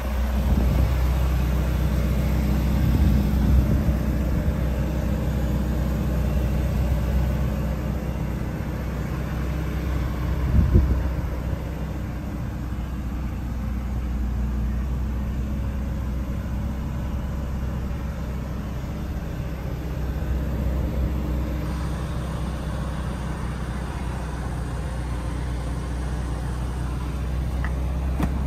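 Ferrari California T's twin-turbo V8 idling steadily, with one brief thump partway through.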